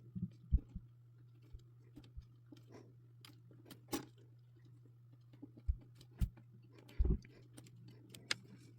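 Scattered small clicks and light knocks of jumper wires being pushed into a solderless breadboard and handled, irregular and spaced out, over a faint steady hum.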